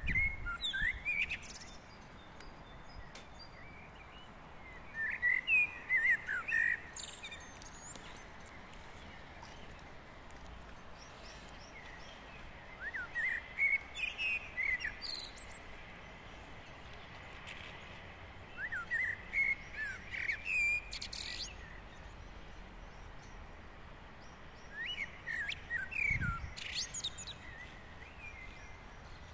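A songbird singing in separate warbling phrases, five of them about two seconds each with pauses of several seconds between.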